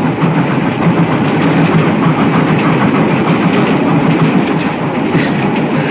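Passenger train carriage running along the rails: a steady rumble with clatter from the wheels.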